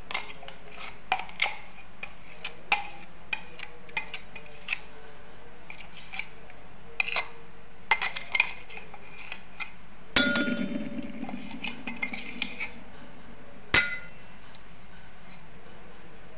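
Metal spoon clinking and scraping against a metal pot while scooping wet ground dosa batter, in scattered light knocks. A louder clang with brief ringing comes about ten seconds in, and another sharp knock near fourteen seconds.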